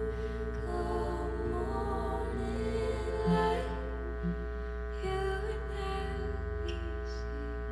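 A slow song: a voice singing over sustained, held accompaniment, with a steady low hum underneath.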